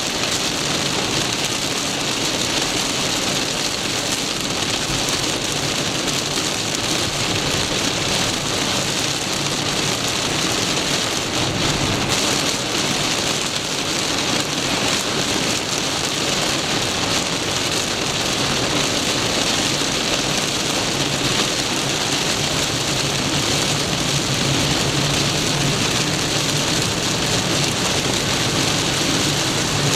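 Heavy downpour beating steadily on a car as it drives, heard from inside the car.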